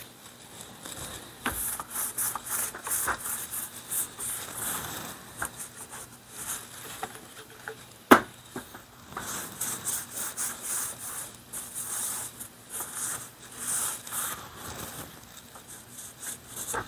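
Rustling and scraping as a cloth is rubbed around the receiver of a disassembled .22 pump rifle and the rifle is handled, wiping out dirt and metal shavings. A single sharp click about eight seconds in is the loudest sound.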